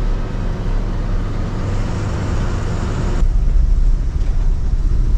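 Steady low rumble of a vehicle engine with road noise. About three seconds in the sound changes abruptly: the hiss drops away and the low rumble gets louder.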